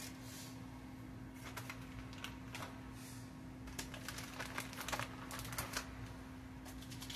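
Light clicks and crinkles from a plastic bag and its packaging being handled. They come sparsely at first, then in a quick flurry about four seconds in, over a steady low hum.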